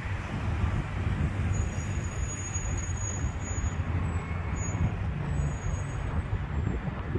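Road traffic going by: a school bus and cars pass on the road, giving a steady low rumble.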